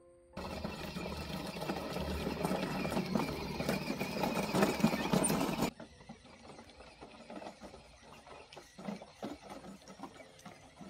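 Children's electric ride-on toy car driving over a rough gravel road: a loud rattling whir of its small motor, gears and plastic wheels, dropping suddenly about halfway through to a much fainter rattle and crunch with scattered ticks.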